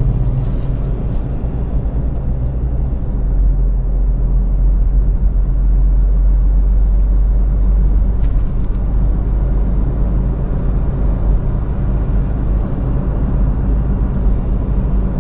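Steady low rumble of a car driving along a highway, heard from inside the cabin: tyre, road and engine noise.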